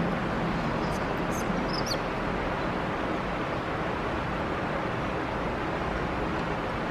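Steady, even hiss of room noise during a silent pause, with a few faint high squeaks in the first two seconds.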